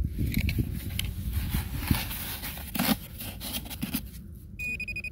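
Hands and a probe scraping and digging in dry sandy soil, with many small gritty scrapes and clicks. Near the end a metal detector pinpointer gives a steady high beep, signalling metal in the hole.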